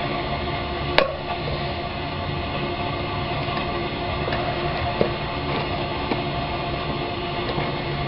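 A steady background drone with a sharp click about a second in and another about five seconds in, as a bicycle tire is pressed onto its wheel rim by hand.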